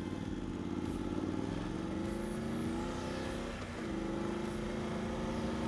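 Motorcycle engine heard through a microphone inside the rider's helmet as the bike pulls away. Its pitch rises, drops with a gear change about three and a half seconds in, then holds steady as it cruises.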